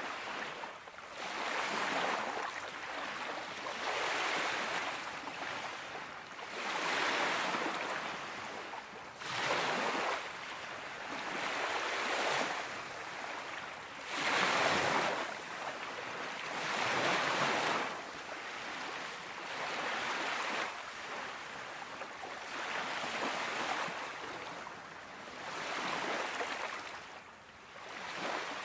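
Small Baltic Sea waves washing onto the beach, one soft rush about every two and a half seconds.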